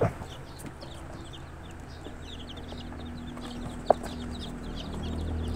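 Young chicks peeping, a steady stream of short high peeps from several birds. A low steady hum runs underneath, and there is a single sharp click about four seconds in.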